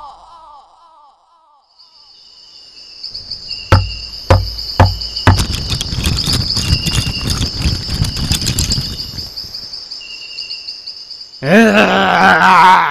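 Insects chirring in a steady high trill, with four sharp knocks in quick succession and then several seconds of dense crackling and rustling. Near the end a loud, short voiced call breaks in.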